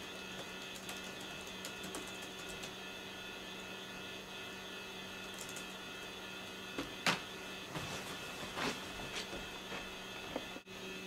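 Faint tapping on a laptop keyboard over a steady electrical hum, then a few sharper clicks and knocks, the loudest about seven seconds in, as the laptop lid is shut.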